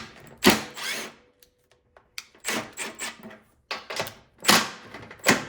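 Metal knocks and scrapes as a thin piece of sheet metal is set under a snowblower's scraper bar and the skid shoes are handled. There is a string of sharp clanks, some with a brief metallic ring, loudest about half a second in and again near the end.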